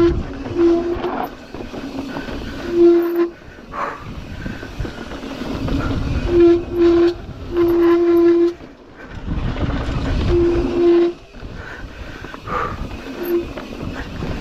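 Mountain bike brakes squealing in about seven short bursts of one steady pitched honk as the rider brakes on a dirt-trail descent, over the rumble of tyres and wind on the trail.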